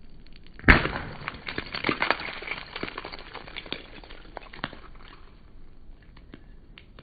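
A sudden sharp crash, then a few seconds of scattered rattling clicks that gradually thin out.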